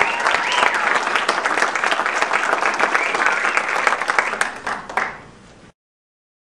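Audience applauding. The clapping fades near the end and cuts off abruptly about five and a half seconds in.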